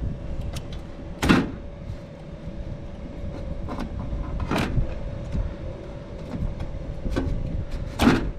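A knife shaving the green insulation off a ground wire: about three louder scraping strokes a few seconds apart, with lighter ones between, over a steady low rumble and hum.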